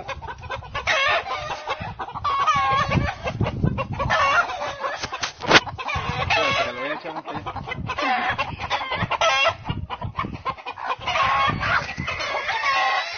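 Several chickens clucking and calling continuously, their calls overlapping, with one sharp click about five and a half seconds in.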